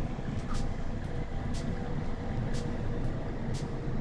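Steady low rumble of engines and traffic, with a short, faint high hiss repeating about once a second.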